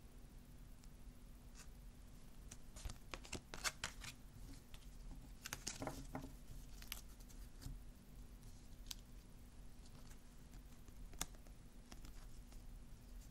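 Glossy oracle cards being handled and flipped through: faint slides, flicks and taps of card on card, with a flurry of them around the middle.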